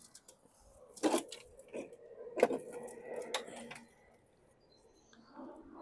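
A Toro Recycler push mower being tipped over onto its side on concrete: a few sharp knocks and clattering rattles of the deck and loose parts, the loudest about a second in and about two and a half seconds in, settling by about four seconds.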